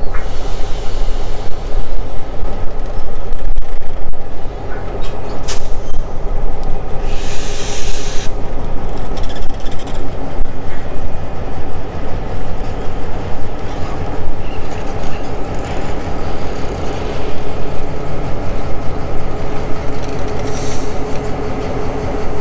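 Diesel locomotive at the head of a freight train approaching slowly, its engine running with a steady drone and rumble. There is a brief hiss about seven seconds in and a short high squeal near the end.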